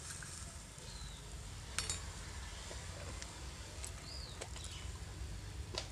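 Quiet outdoor background with a steady low rumble and a few short, faint bird chirps. A light metallic click about two seconds in and another near the end, from the small steel bowl and tongs being set down into the large steel mixing bowl.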